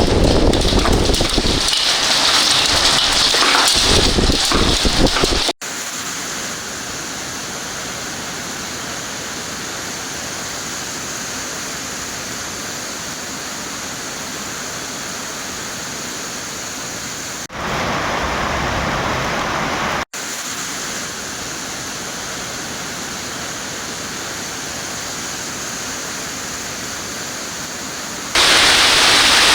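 Heavy rain pouring down, a steady hiss of rainfall. It comes in several spliced segments whose loudness jumps abruptly at each join, about 5, 17, 20 and 28 seconds in.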